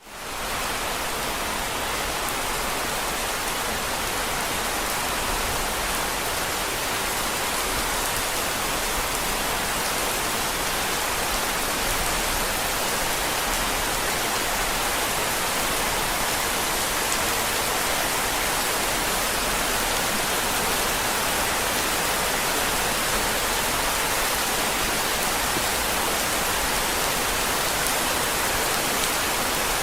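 Steady rain, an even dense hiss that fades in at the very start and then holds level.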